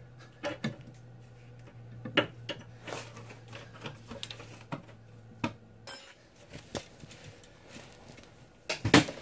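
Metal car parts and hand tools clinking and knocking as the drivetrain is reassembled, a few separate knocks spread out, with the loudest cluster near the end.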